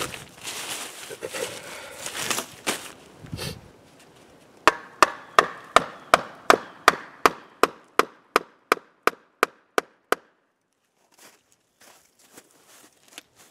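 Rustling of clothing and dry ground litter, then a run of about sixteen sharp chopping strokes, roughly three a second, of a bushcraft knife into the dead wood of a fallen log. The strokes grow fainter toward the end.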